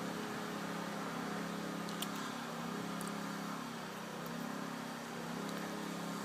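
Steady mechanical hum in the background with a slow waver, and one light click about two seconds in: a torque wrench clicking over as it reaches the set 30 inch-pounds on the carburetor heater element.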